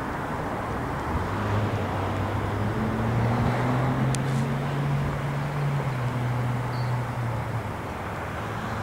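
Low engine hum of a passing motor vehicle that starts about a second in, rises slightly in pitch around the middle, then fades out near the end, over a steady rushing background noise.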